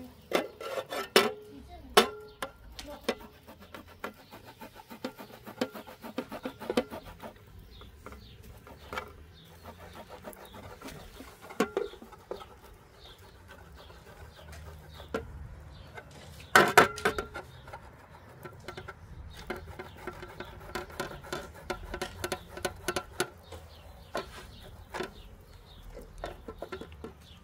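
A sausage being grated on a metal box grater standing on an aluminium tray: repeated rasping strokes, with sharp knocks of the grater on the tray now and then, the loudest about two-thirds of the way in.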